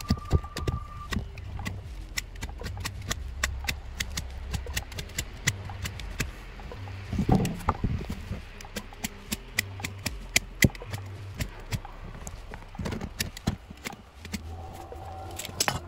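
A small knife whittling the end of a wooden rake handle: a quick, irregular run of sharp shaving clicks as the blade bites into the wood, with one louder scrape about seven seconds in.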